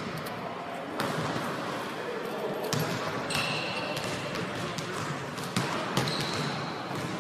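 Basketballs bouncing on a hardwood gym floor, several sharp bounces over the steady hum of a large practice gym, with voices in the background.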